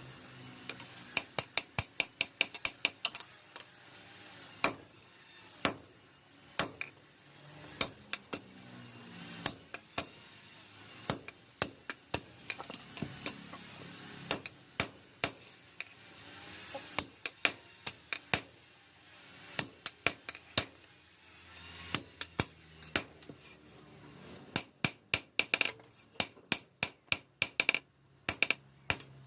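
Hammer striking steel in runs of quick ringing blows, a few a second, coming faster and denser near the end.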